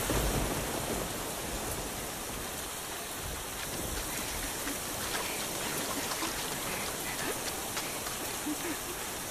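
Rain falling steadily, an even hiss, with a brief low rumble at the very start.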